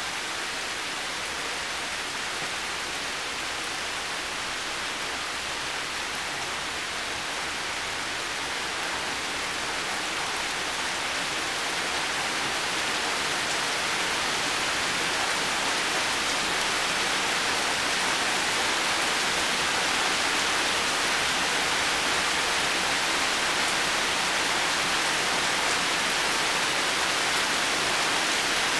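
Heavy rain pouring steadily onto leaves and a metal-panelled box, a dense even hiss that grows a little louder about halfway through.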